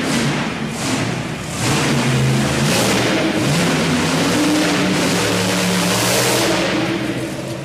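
Monster truck engine revving, its pitch rising and falling several times over a loud hiss, then fading out near the end.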